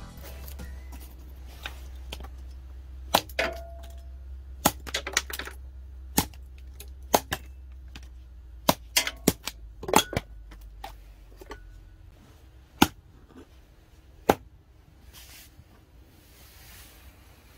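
Irregular sharp knocks and clinks, about a dozen of them, from steel axe heads and wood being handled and set down on a pile of logs, under a low steady hum that fades out about twelve seconds in.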